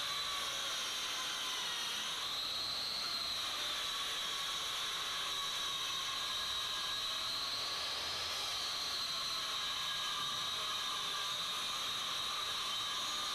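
A steady, even hiss with faint high whistling tones that slowly waver up and down in pitch.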